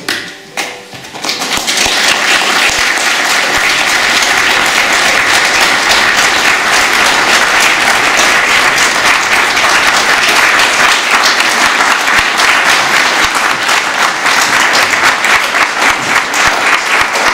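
A church congregation applauding. The clapping swells in about a second and a half in and then continues steadily.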